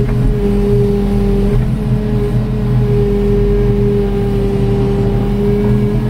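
Excavator diesel engine and hydraulics working under load, heard from inside the cab as a loud, steady drone while the bucket scrapes and scoops soil at the corner of the pit.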